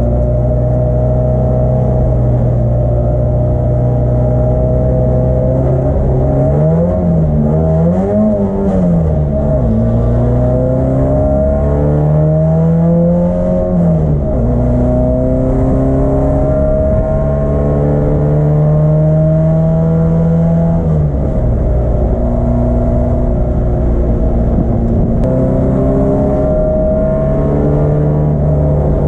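Vintage BMW race car's M10 four-cylinder engine running hard. After a spell of steady running, the revs swing up and down twice quickly. Then they climb slowly several times, each climb ending in a sudden drop at a gear change.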